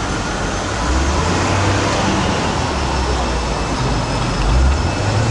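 Street traffic going by: a heavy vehicle's low engine rumble over tyre and road noise, getting louder about a second in and shifting pitch a few times.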